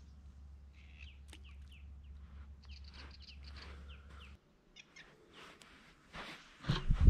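Small birds chirping in short, high calls over a low steady hum that cuts off a little past halfway; near the end comes a burst of loud, low knocks and bumps.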